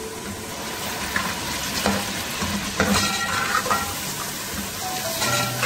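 Sliced onions and whole spices frying in oil in an aluminium pot, sizzling steadily while a slotted spoon stirs them, with several short scrapes of the spoon against the pot.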